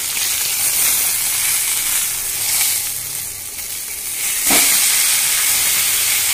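Fish pieces frying in oil in an iron kadai, a loud, steady sizzle. About four and a half seconds in, the spatula knocks or scrapes once against the pan while turning a piece.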